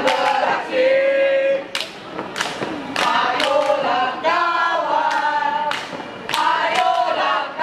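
A group of young scouts singing a yell song together, punctuated at uneven intervals by about ten sharp percussive hits from the performers.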